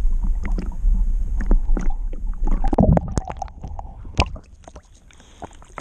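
Lake water sloshing and gurgling around a swimming dog and the camera on its back, with a low rumble and a burst of splashing about three seconds in. The sound drops off sharply near the end.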